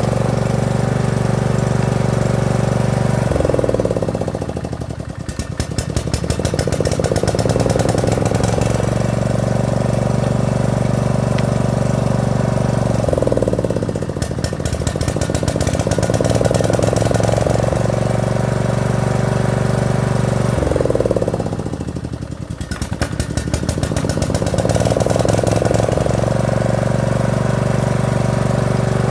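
Lawn mower engine running under repair, its speed sinking three times to a slow chug of separate firing pulses and climbing back up, about every eight or nine seconds.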